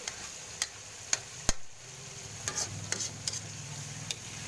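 Metal spatula stirring tomatoes, onion and garlic in a wok, clinking sharply against the pan about ten times at uneven intervals over a steady sizzle of frying oil.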